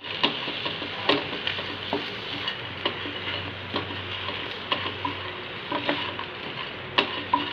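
Black nightshade leaves sizzling as they sauté in a non-stick frying pan, stirred with a wooden spatula that scrapes and knocks against the pan about once a second.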